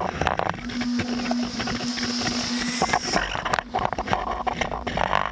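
A quadcopter drone's electric motors humming, a steady hum that holds for about two seconds, among many knocks and rattles from the shaken drone, picked up by the drone's own camera.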